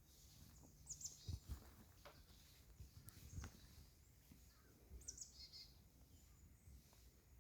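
Faint bird calls: a short chirping call about a second in and another about five seconds in, over quiet outdoor background. A few soft low thumps come in between.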